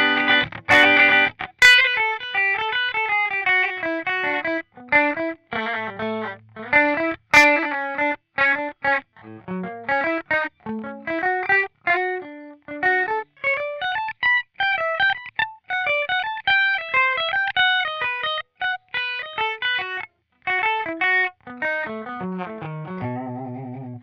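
Swing P-2S electric guitar on a clean tone through a Line 6 POD HD500, played as a fast lead. A couple of strummed chords in the first second or two lead into quick single-note runs climbing and falling, and a held note with vibrato comes shortly before the end.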